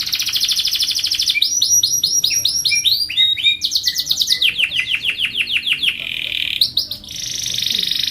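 Domestic canary singing a long, unbroken song. It moves from fast buzzy trills to runs of repeated swooping notes, several a second, and back into trills.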